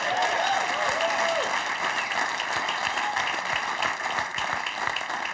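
Studio audience applauding, with voices calling out over the clapping in the first second and a half.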